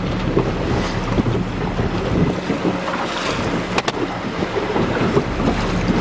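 Small boat's motor running steadily, with water rushing past the hull and wind buffeting the microphone. The wind rumble eases a little over two seconds in, and there is a single sharp click near four seconds.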